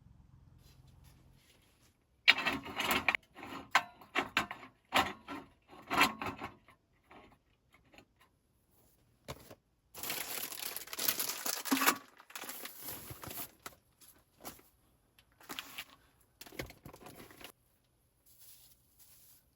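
Objects being handled at close range: irregular clicks, knocks and rustles, with about two seconds of continuous rustling or crinkling around the middle.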